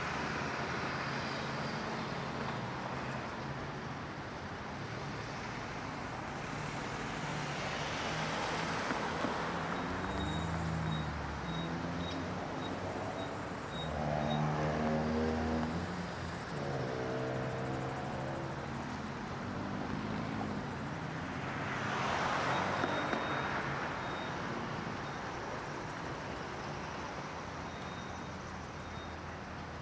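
Road traffic of a tow truck procession: vehicles swish past on the road twice, and in the middle the heavy engines of the passing wreckers rumble up and fade.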